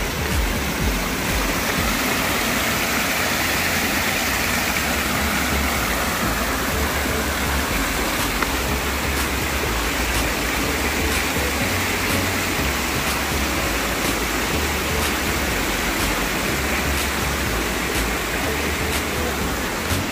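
Water from an outdoor fountain cascading off the rim of a raised bowl into the pool below: a steady splashing rush that grows fuller in the middle and eases toward the end.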